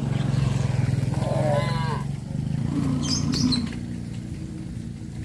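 Cow mooing: one long, low call, loudest in the first two seconds and trailing off soon after.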